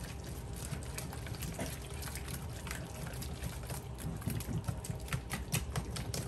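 Hand whisk beating a thick, wet batter in a mixing bowl: a quick, irregular wet slapping with the wires clicking against the bowl, getting faster and sharper in the second half. The clicking comes from breaking up lumps of cold peanut butter and mashed banana.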